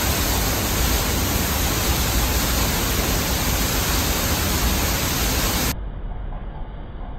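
Niagara's Horseshoe Falls pouring down just outside a tunnel portal: a loud, steady rush of falling water with no break in it. About six seconds in it cuts to a quieter, duller rush.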